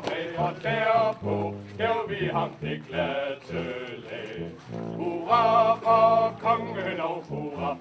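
A group of voices singing a song together, with held notes and men's voices prominent.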